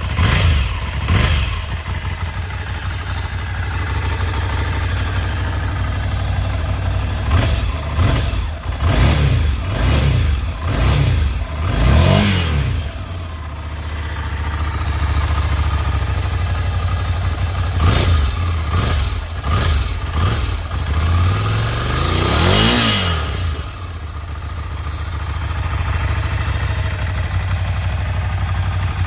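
Ducati Monster 797's air-cooled L-twin idling through its stock exhaust, blipped with the throttle again and again. The revs rise and fall in short clusters, and the longest, highest rev comes about three quarters of the way through.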